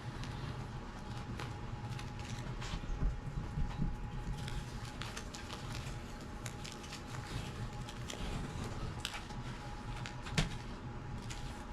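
Tape being peeled off around a freshly sealed bracket: faint, scattered crackles and small ticks, with a few louder snaps about three and ten seconds in.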